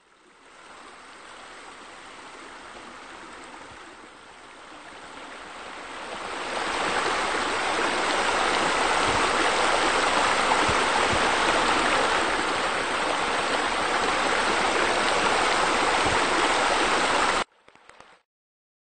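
Water running and splashing over rocks, as from a small rock waterfall water feature. It is fainter at first, louder from about six seconds in, and cuts off suddenly near the end.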